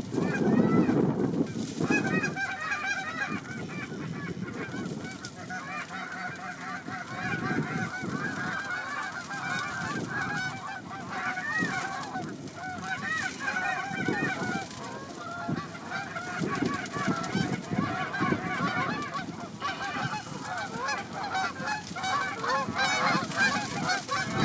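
A flock of Canada geese honking and clucking, many overlapping calls throughout, with wind rumbling on the microphone in the first couple of seconds.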